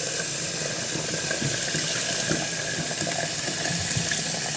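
Tap water running steadily into a stainless steel electric kettle as it is filled to its 1.7-litre maximum.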